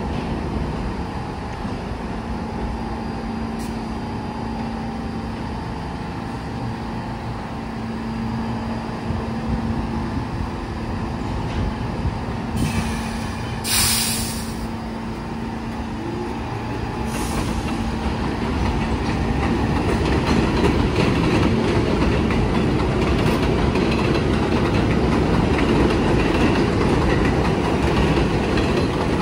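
New York City subway train of R46 cars moving slowly on an elevated track, its motors giving a steady low hum with a brief hiss about fourteen seconds in. The wheel and rail rumble grows louder over the second half as the train gathers speed.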